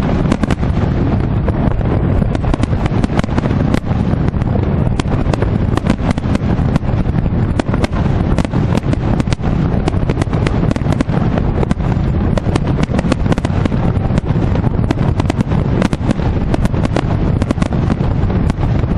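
Fireworks display going off without pause: a dense, rapid run of sharp cracks and bangs over a steady low rumble.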